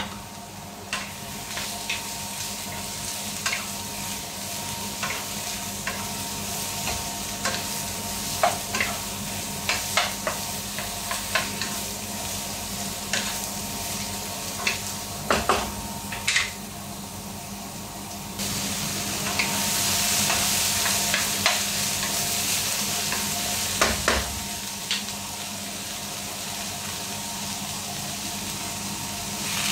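Sponge gourd, mushrooms and red chili stir-frying in olive oil in a nonstick wok: a steady sizzle with a utensil knocking and scraping against the pan at irregular intervals. The sizzle grows louder for several seconds past the middle, then eases back.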